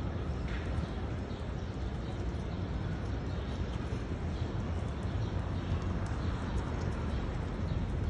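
Faint, scattered chirps from small birds, likely the sparrows dust-bathing, over a steady low outdoor rumble.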